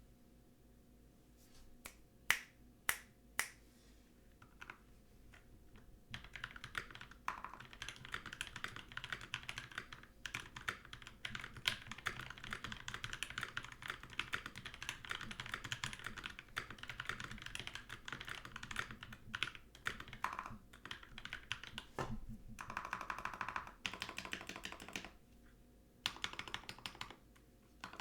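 Keychron K12 mechanical keyboard with lubed Boba U4T tactile switches and GMK ABS keycaps being typed on. A few separate keystrokes come first, then fast continuous typing from about six seconds in, with a single heavier thump partway through. Near the end it breaks into shorter bursts of typing.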